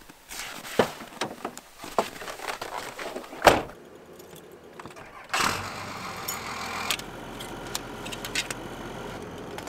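Footsteps, then a loud thump like a door shutting, keys in the ignition, and a Dodge Ram pickup's engine starting about five seconds in and settling into a steady idle. Small plastic clicks of a cassette case being handled come near the end.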